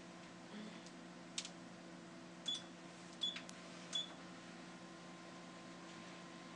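Ultrasound machine console: a few sharp key clicks, three of them with a short high beep, over a faint steady electrical hum.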